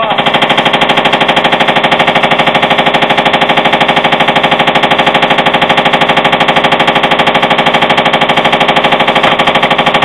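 Hotpoint front-loading washing machine on spin, the drum knocking loudly in a rapid, even rhythm many times a second. The owner puts this knock on spin down to worn drum bearings.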